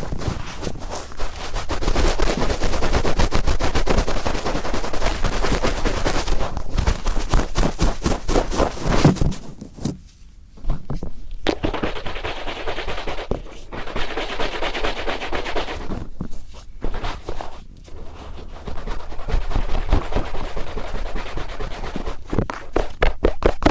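Cotton swab rubbed firmly and rapidly around an ear right at the microphone, a dense crackling scratch. It drops away briefly about ten seconds in, then starts again.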